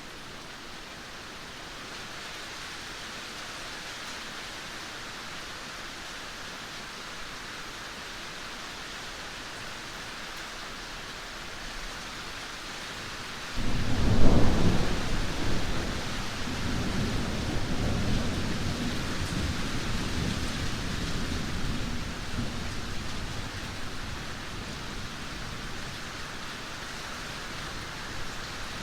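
Steady heavy rain, with a sudden thunderclap about halfway through that rumbles on for several seconds and slowly fades.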